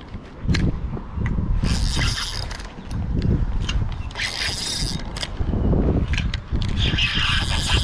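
Spinning reel being cranked right at the microphone, its gears and winding line making a whirring, ratcheting noise in three spells of about a second each, over low rumbling wind and handling noise.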